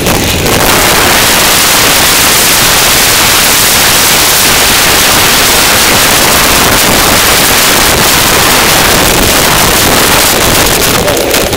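Wind rushing over the microphone of a camera on a mountain bike moving fast down a trail: a loud, steady hiss that covers everything, easing slightly near the end.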